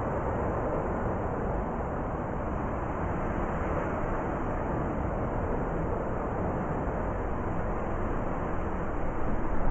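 Blizzard wind blowing as a steady, low rushing noise, starting to swell near the end.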